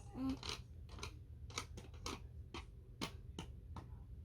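Irregular small clicks and knocks of plastic Roomba robot vacuum parts being handled, about a dozen over a few seconds.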